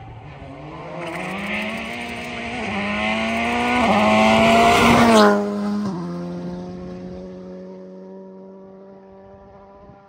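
Rally car approaching at full throttle, the engine note rising and dropping back twice as it changes up through the gears. It passes close with tyre noise, its pitch falls as it goes by, and the engine fades into the distance.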